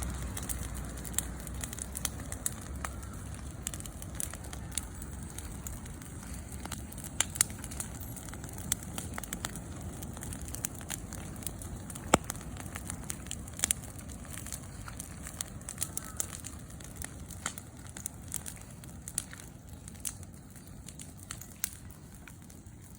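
Campfire crackling: irregular sharp pops and snaps over a low hiss, with one louder snap about halfway through.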